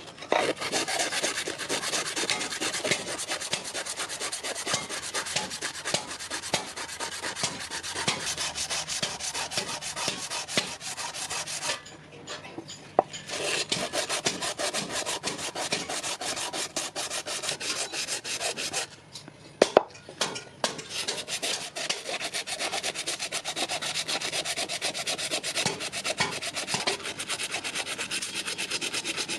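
Continuous rapid scraping of an abrasive being worked over the steel of a knife in the making, as in sanding or filing, with no motor tone. It breaks off briefly twice, about twelve and nineteen seconds in, with a few sharp clicks around those breaks.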